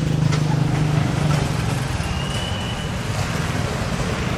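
Motorbike engine running with a steady low hum over road traffic noise, its engine note fading somewhat about a second and a half in. A brief thin high tone sounds around the middle.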